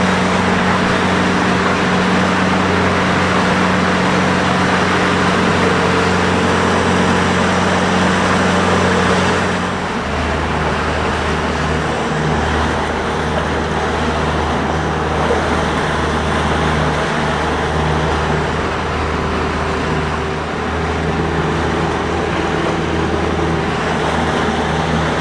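A boat's engine runs steadily under way over the rush of wind and water. About ten seconds in, the engine note drops and it runs a little quieter.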